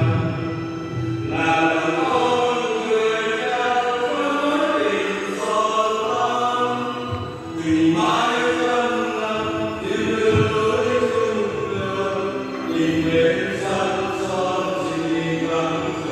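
Church choir singing a hymn, several voices together.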